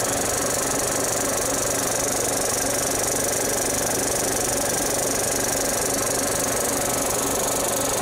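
35mm film projector running: the rapid, even clatter of the film being pulled through the mechanism, with a steady low hum underneath.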